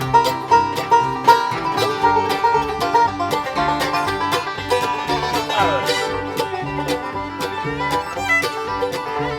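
String band playing an instrumental fiddle tune: fiddle on the melody over a quick picked banjo and strummed guitar. A falling pitch slide comes a little past the middle.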